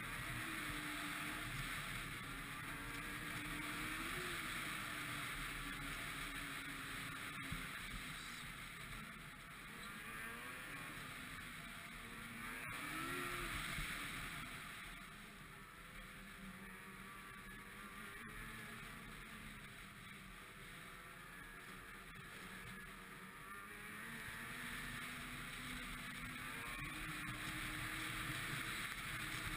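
Ski-Doo MXZ 600 XRS snowmobile engine running on the move, its pitch rising and falling with the throttle, over a steady rushing noise. It eases off for several seconds around the middle and picks up again near the end.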